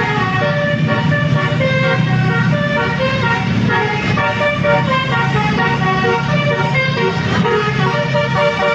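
Basuri multi-tone musical horn (telolet) playing a tune, its notes stepping from pitch to pitch in quick succession, over a vehicle engine running.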